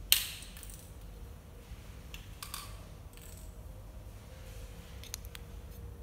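A sharp plastic click, then a few lighter clicks and taps: a small plastic wireless-earbuds charging case being handled.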